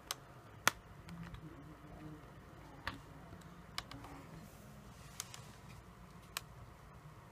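Laptop keys being pressed: about six single sharp clicks, spaced irregularly, over a faint steady hum.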